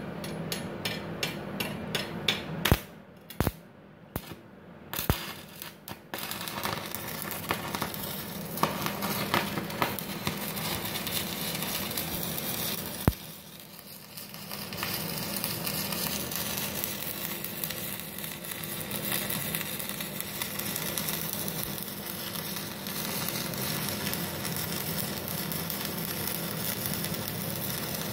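Stick (MMA) welding arc from an IGBT inverter welder, a 3.2 mm LB electrode burning at 96 A with the VRD switched off. For the first six seconds the arc catches in fits and starts, sharp crackles broken by short gaps. Then it settles into a steady frying crackle that breaks off briefly about 13 seconds in and picks up again.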